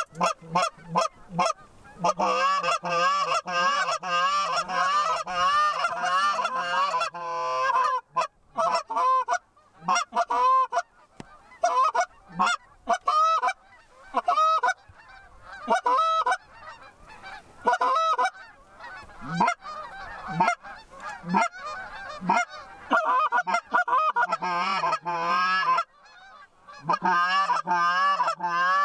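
Canada geese honking and clucking, a steady run of short calls, thick and rapid for the first several seconds and again near the end, sparser in between.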